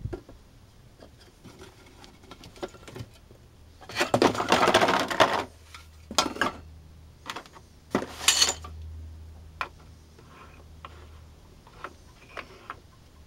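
Metal muffin tin being handled as cast resin orgonite pucks are knocked out of it, with a long clattering rattle about four seconds in and shorter clatters around six and eight seconds. Light knocks follow as the hard pucks are set down on wooden slats.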